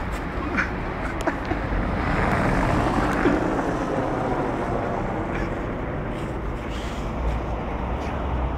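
Street ambience: a steady traffic rumble on a wet road, swelling a couple of seconds in, with a few faint clicks.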